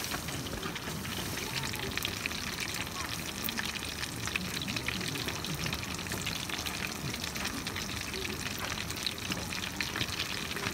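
Kushikatsu skewers deep-frying in hot oil in an aluminium mess tin: a steady bubbling sizzle with a constant fine crackle.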